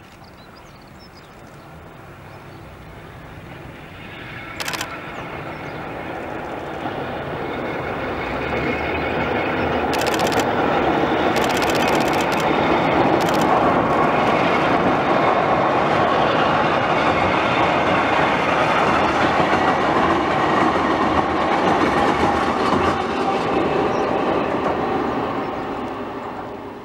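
A four-car vintage Kotoden electric train running across a steel girder railway bridge: the rumble of its wheels builds for about ten seconds, stays loud while it passes, and fades near the end. A few brief, sharp noises cut through about five seconds in and again around ten to thirteen seconds in.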